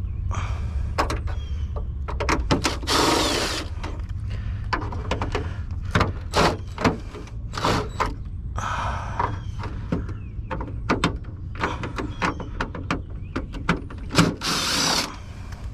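Scrap being taken apart with a power drill: short bursts of the drill running, about three times, among many sharp clicks and knocks of metal parts and screws being handled, over a steady low hum.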